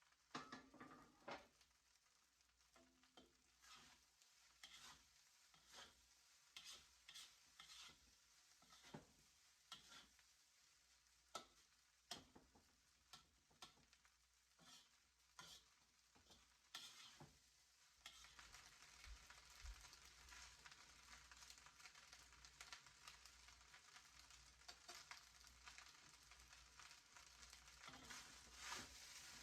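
A cooking utensil clicking and scraping against a pan at irregular intervals, then a steady, faint sizzle of food frying that starts about two-thirds of the way in, with the stirring going on over it.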